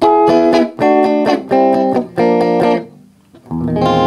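Guitar played through a Fender Acoustasonic 30 solid-state amp: about five short strummed chords in quick succession, a brief pause, then a chord struck near the end and left ringing. The amp is working again after a repair for a no-power fault.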